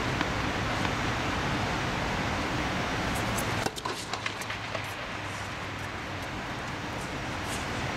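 Steady rushing hum of the tennis air dome's inflation blowers, with a few sharp knocks around the middle as a tennis ball is served off a racket.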